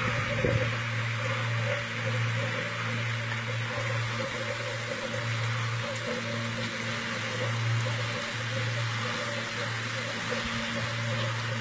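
Steady low electrical hum under a continuous sizzling hiss, from power equipment burning and arcing in an electrical fire.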